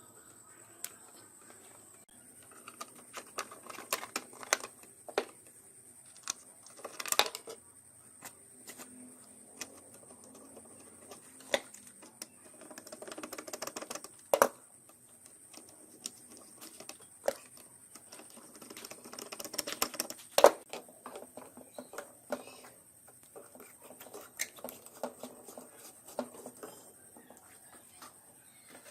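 Irregular clicks, taps and light knocks of small parts being handled and fitted by hand, with short stretches of rattling or scraping between them.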